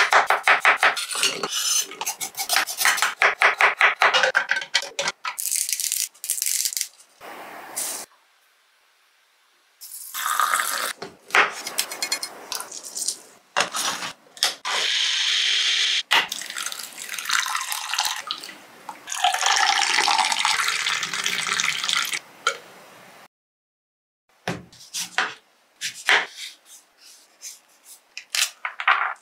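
A run of kitchen prep sounds. First a knife chops amla (Indian gooseberries) on a wooden cutting board in a quick series of knocks. Later an electric blender runs briefly with a steady whirr, and liquid splashes and pours.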